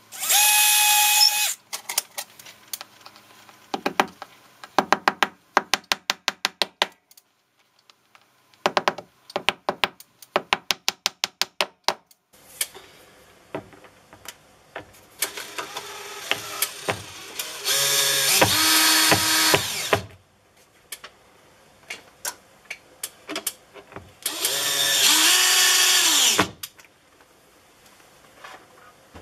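Cordless drill running in three bursts, drilling and driving screws to fix the smoke detector's mounting bracket to a wall. The middle run is long and grows louder partway through. The last run winds down in pitch as it stops. Between the runs come trains of quick clicks.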